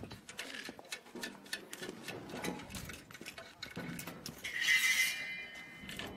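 Metal parts of a walking-tractor rice/wheat reaper clinking and tapping as they are handled during assembly, with a louder brief screech about four and a half seconds in.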